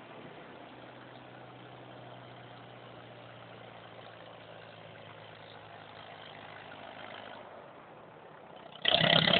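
An old engine idling steadily. Near the end a sudden, much louder sound with several tones cuts in and lasts about a second.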